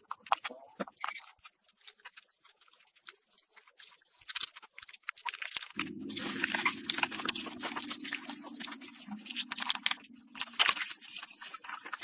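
Scattered clicks and light knocks of hand work on metal parts. About halfway through, a steady hum like a small motor or power tool starts and stops again near the end.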